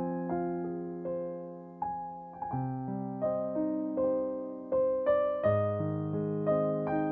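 Background music: a soft keyboard piano melody over low held chords. Each note is struck and fades, about one or two a second.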